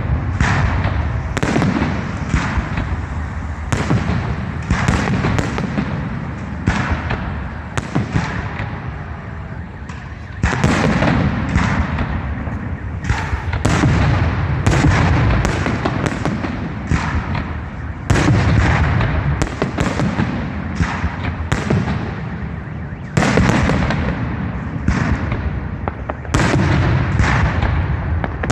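Fireworks display: rapid volleys of shell bursts, several bangs a second, over a continuous rumble, with fresh louder salvos starting every few seconds.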